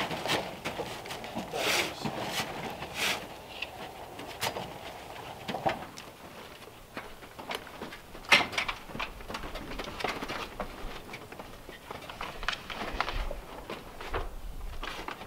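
Irregular knocks and clatter of a wide wooden board being carried and set up against a wall, with one sharper knock about eight seconds in.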